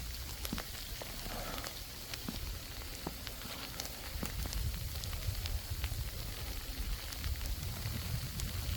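Falling snow ticking and crackling on nearby surfaces in many small, irregular taps over a faint hiss, with a low rumble underneath.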